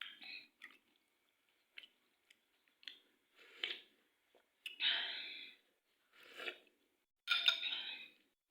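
A person eating Indomie instant noodles close to the microphone: chewing and mouth noises in about eight irregular bursts, the longest and loudest about five seconds in and near the end.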